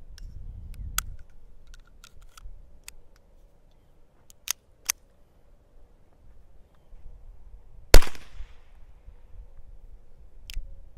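Single suppressed shot from a Beretta Bobcat .22 LR pistol through a tiny pill-bottle suppressor, a sharp crack about eight seconds in followed by a short ringing tail. Much of its report leaks from the pistol's breech rather than the suppressor, as the shooter explains. It is preceded by a few light metallic clicks of handling the pistol.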